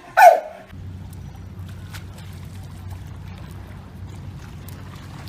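A dog gives one loud, short woof whose pitch falls, answering a sung cue. Then a steady low hum with a faint even hiss.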